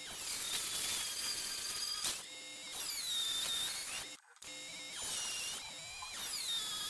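Small benchtop milling machine's end mill cutting the flats of a hex head on a screw blank held on a rotary table. The motor whine rises and falls in pitch under the cutting load, and stops briefly a little past halfway before carrying on.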